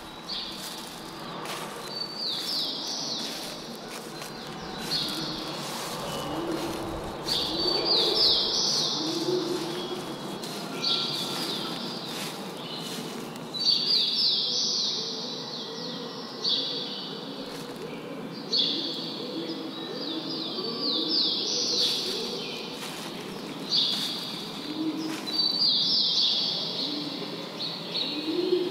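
Birdsong: a songbird repeats a quick run of high, falling notes every few seconds, while a dove coos low beneath it now and then.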